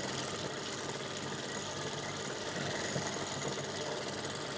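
Industrial sewing machine running steadily, stitching a seam through folded fabric.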